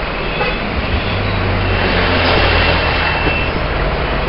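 Steady road and engine noise of a moving vehicle, with a low hum that swells for a couple of seconds in the middle.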